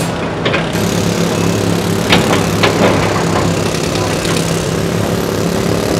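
Kobelco tracked excavator's diesel engine running steadily at close range, with a few short sharp knocks from the machine in the middle of the stretch.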